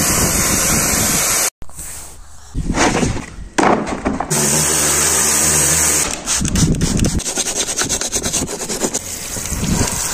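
Pressure washer spraying, its jet hissing with the pump motor humming underneath. The sound cuts off abruptly and changes several times, and in the second half the spray flutters rapidly.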